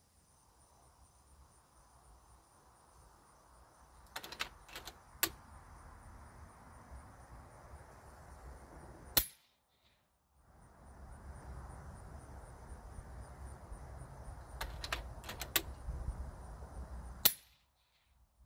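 Two shots from a .30-calibre SKOUT Epoch PCP air rifle, each a single sharp crack, about eight seconds apart. A few lighter clicks come a few seconds before each shot.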